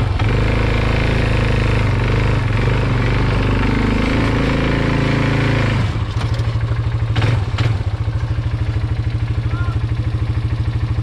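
Yamaha Big Bear 250 ATV's single-cylinder four-stroke engine running steadily at raised revs, then dropping back to idle about six seconds in, where its separate firing pulses can be heard. A couple of short knocks come just after the drop.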